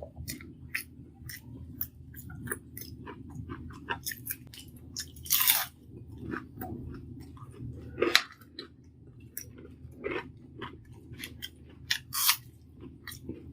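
Close-miked chewing of a mouthful of rice mashed with ghee and boiled potato: many short mouth clicks, with a few louder bites or swallows about five and a half, eight and twelve seconds in.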